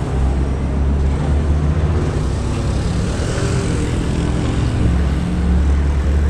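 Diesel bus engines running, a loud, steady low drone.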